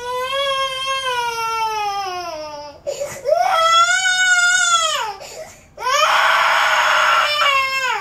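A toddler crying in three long wails with short breaths between, the first slowly falling in pitch, the last rough and strained; she is fussing to be let outside.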